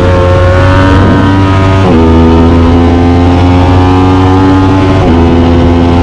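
Aprilia RS 660's parallel-twin engine through an SC Project CR-T exhaust, heard on board under hard acceleration. Its pitch climbs steadily, then drops sharply about two seconds in and again about five seconds in as the rider shifts up, and climbs again after each shift.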